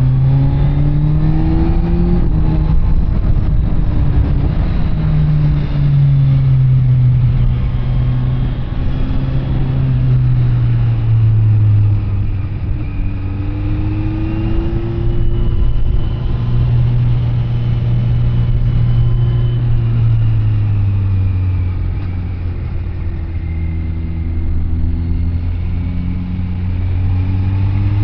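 Kawasaki Z900 SE's inline-four engine through an SC Project CR-T carbon exhaust, ridden on the road. The revs climb and drop several times as the rider opens and closes the throttle, with longer stretches of steady cruising between.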